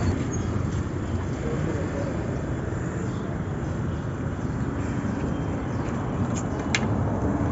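Street ambience: a steady rumble of road traffic, with a brief sharp tick about seven seconds in.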